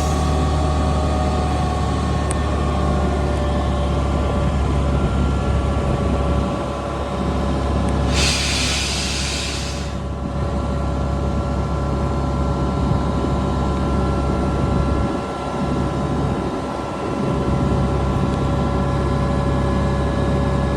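Air compressor of ex-Husa locomotive 1609 (RRF 4402) running steadily with a deep hum and a few steady whining tones. About eight seconds in, a loud hiss of escaping air lasts about two seconds.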